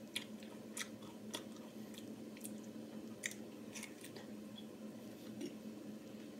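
A person chewing and biting into fresh pineapple: short, irregular mouth clicks and smacks, a few to the second, over a steady low hum.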